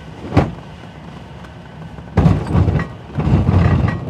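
Glider's landing wheel rolling fast over a grass field. There is a single thump about half a second in, then from about two seconds in a loud, rough rumble with jolts as the wheel runs over the uneven ground.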